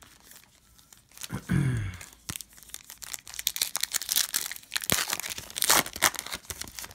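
Plastic foil wrapper of a trading card pack being torn open and crinkled, a run of sharp, irregular rustles and tears.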